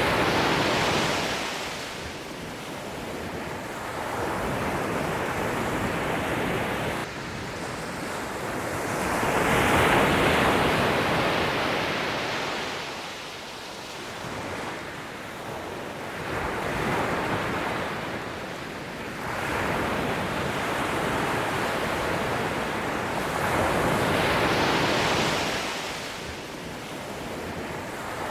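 Ocean waves breaking on a shore, each swelling to a hissing wash and then fading, one every several seconds, with some wind noise on the microphone.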